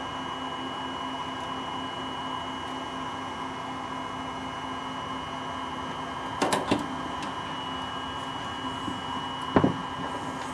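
Metal alligator clips of a helping-hands soldering stand clicking and knocking as a small soldered connector is worked out of them: a quick cluster of clicks about six and a half seconds in, a louder knock near the end, over a steady electrical hum with a thin high whine.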